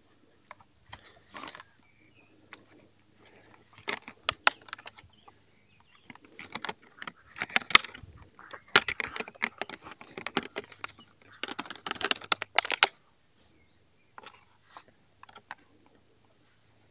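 Plastic bag crinkling and rustling in irregular crackly bursts as a dog grips it in its mouth and tugs at it, busiest in the middle of the stretch.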